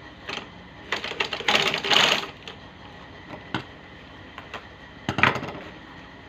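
Manual sewing machine stitching shoe uppers in short runs: a rapid clatter of stitches about a second in, lasting about a second, then a shorter burst near the end, with single clicks in between.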